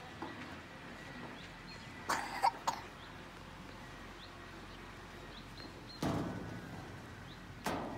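A few short knocks about two seconds in, then two heavier thuds that ring and die away about six and seven and a half seconds in: feet and hands on the metal steps and frame of a playground slide. Faint bird chirps come between them.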